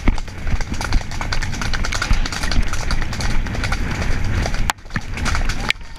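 Hoofbeats of a palomino mare moving at speed on a dirt woodland track, heard from a helmet-mounted camera, with wind rushing over the microphone. The sound drops away for a moment about three-quarters of the way through.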